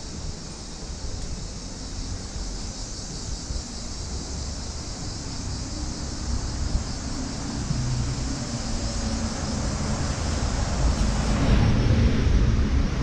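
A motor vehicle's engine passing in the street, humming louder through the second half and loudest near the end, over steady street rumble and a high continuous hiss.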